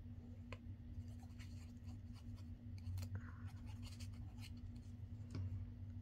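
Paper being handled and rubbed: a small paper tag is glued and pressed down onto a paper card, giving faint scratches and light clicks, with a longer rub about three seconds in and another near the end.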